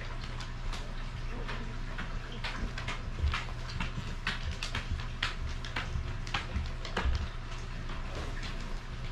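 Basset hound puppies shuffling and crawling on their bedding: irregular soft clicks and rustles with a few light thumps, over a steady low hum.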